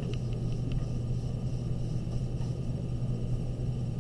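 Steady low hum of room or recording noise, with a few faint pencil strokes on paper in the first second.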